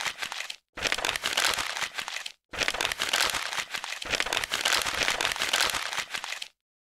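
Brown paper mailer bag crinkling and rustling as it is opened by hand, in three stretches broken by brief sudden gaps, stopping about six and a half seconds in.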